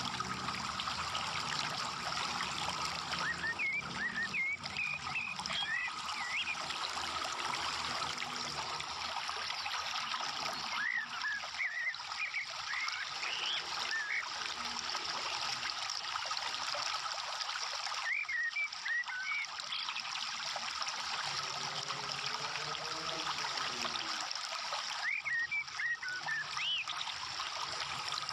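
Uncooked rice grains trickling and rustling as they are scooped by hand into a woven palm-leaf ketupat casing, a steady grainy hiss. Short chirps come in four brief clusters.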